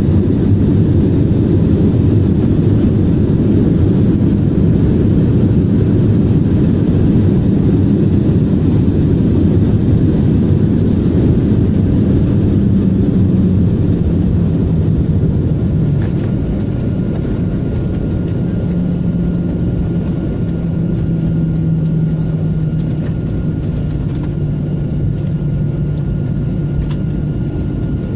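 Airliner's jet engines heard from inside the passenger cabin as the plane taxis: a loud, steady rumble that eases a little about halfway through, with a faint high whine coming in around then.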